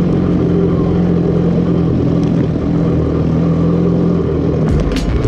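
ATV engine running steadily at an even pitch under the rider on a trail ride. Near the end the sound shifts and a few sharp knocks come in.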